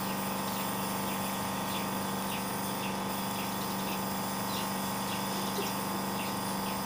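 Small electric compressor nebulizer running steadily: a constant hum with an even airy hiss as it feeds mist through the tubing to a baby's face mask.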